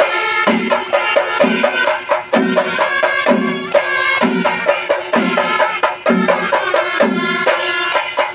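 Kerala temple-festival chenda melam: drums playing together with a pitched melody line over them, and a low deep stroke recurring about once a second.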